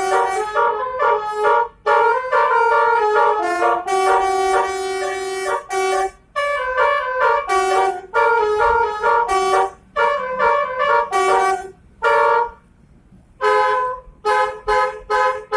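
Basuri telolet horn, a multi-tone bus horn run by an electronic module, playing a quick melody of short notes in phrases, with a brief pause near the end.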